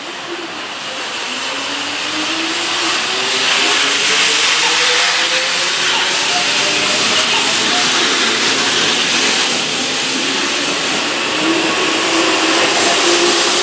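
Keihan 2200-series electric train pulling out and accelerating past on the platform, its traction motors whining in a slowly rising pitch over the rumble of wheels on rail. It grows louder over the first few seconds and then holds steady, and another rising whine starts near the end.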